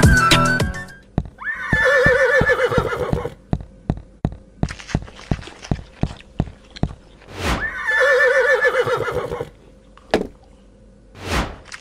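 Horse sound effect: a horse whinnying twice, about a second and a half in and again around eight seconds in. Between the whinnies comes a steady run of clip-clopping hoofbeats, about three a second.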